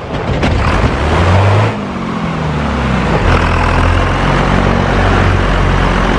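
A heavy vehicle engine running over a dense rumble, its pitch rising and falling a few times.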